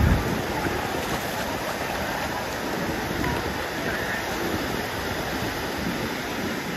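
Small ocean waves breaking and washing up the shore, a steady rush of surf and foam, with a brief low thump right at the start.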